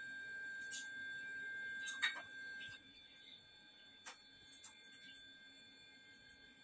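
Faint steady high-pitched whine that drops away about three seconds in, with a few light clinks of a spoon against a glass mixing bowl as batter is stirred. The sharpest clink comes about two seconds in.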